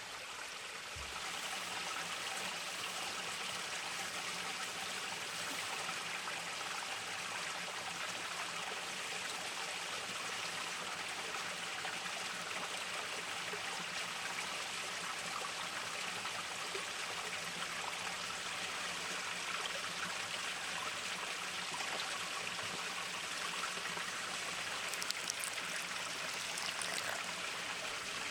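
Steady rushing of running water, like a forest stream, with a few faint clicks near the end.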